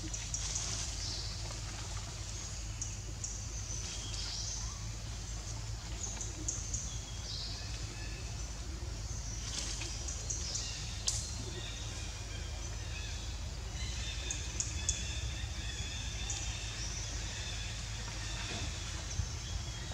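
Forest ambience: birds chirping in short, high calls scattered throughout, over a steady low hum.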